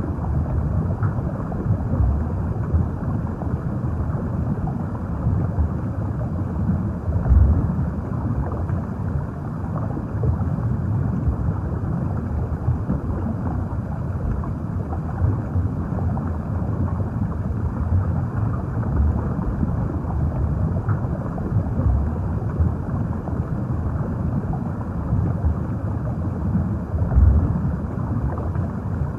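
Underwater ambience: a steady, muffled low rumble of water noise with no distinct tones, swelling briefly a couple of times.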